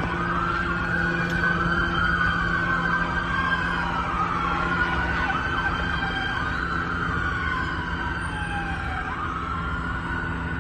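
Several emergency-vehicle sirens wailing at once, their rising and falling sweeps overlapping out of step, with a steady low hum underneath.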